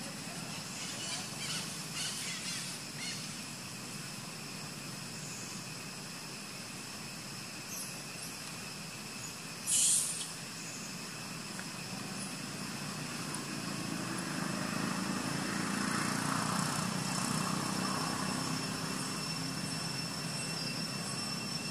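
Outdoor ambience with a few thin steady high tones, a brief sharp high-pitched sound about halfway through, and a low engine rumble that swells in from about two-thirds of the way through, like a distant vehicle or aircraft passing.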